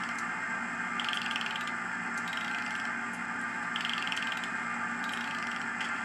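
SoundTraxx Tsunami heavy-steam sound decoder in an N scale Kato FEF, playing the standing locomotive's idle sounds through its small speaker: a steady hiss and hum with a short repeating pulse about every second and a half.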